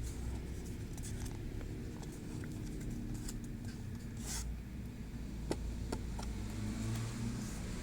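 Trading-card packs and packaging being handled: a few short scrapes and clicks, the loudest a scrape about four seconds in, over a steady low rumble.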